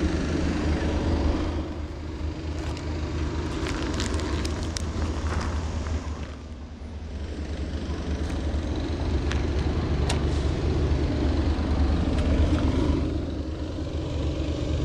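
Low, steady rumble of motor traffic, easing about six seconds in and building again.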